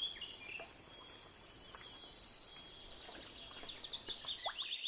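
Steady high-pitched chorus of insects, with scattered short bird chirps through it; it cuts off suddenly near the end.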